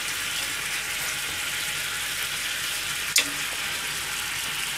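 Garlic cloves sizzling steadily in hot oil in a sukiyaki pan. There is a single sharp click about three seconds in.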